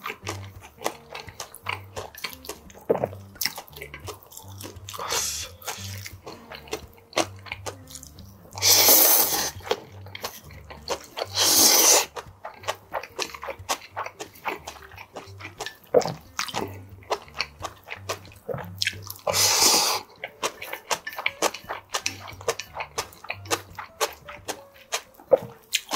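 Close-up eating sounds of seaweed bibim noodles: wet chewing and mouth clicks throughout, with three loud slurps, two close together about nine and twelve seconds in and one about twenty seconds in.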